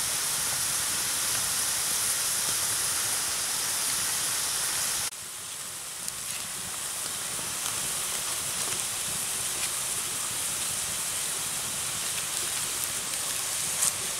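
Steady hiss of green bamboo tubes steaming over a wood fire. About five seconds in it cuts to a quieter hiss with a few small crackles from the fire.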